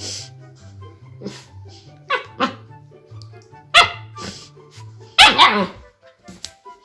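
Siberian husky puppy barking and yowling in a handful of short calls, the longest and loudest about five seconds in, over background music with a steady bass line.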